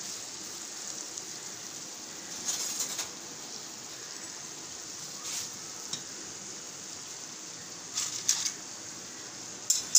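Chicken tikka sizzling quietly in a non-stick wok, with a few short clicks and clinks. About eight seconds in, metal tongs set a piece of coal into a foil cup in the middle of the pan to smoke the chicken.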